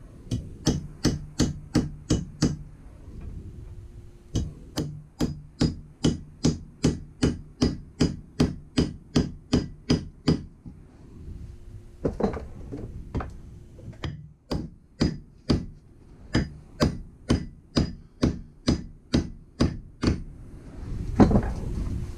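Hammer tapping a round steel wedge into the top of a wooden axe handle, metal striking metal. The strikes are steady, about two to three a second, in three runs with short pauses between them, driving the wedge down until it is flush.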